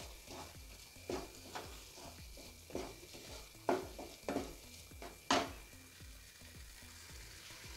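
A spatula scraping and knocking through thick semolina halwa in a non-stick kadai, in a series of uneven stirring strokes. The loudest stroke comes about five seconds in, and the stirring stops soon after.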